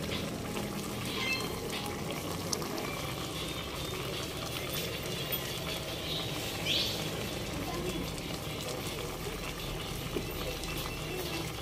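A pot of fish adobo simmering: the sauce bubbling steadily with small pops and crackles. Two short high chirps come through, a faint one about a second in and a louder one near the middle.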